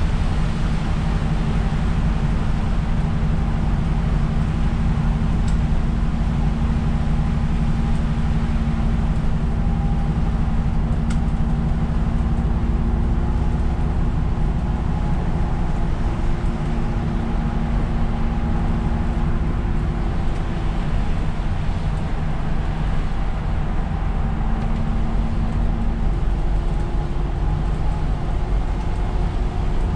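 Isuzu Erga city bus heard from inside the cabin while driving: a steady drone of diesel engine and drivetrain, with a few held tones that shift now and then and a hiss of tyres on the wet road.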